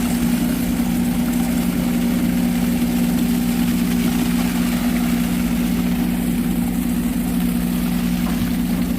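Heavy construction-vehicle engine running steadily at constant speed, with an even low hum.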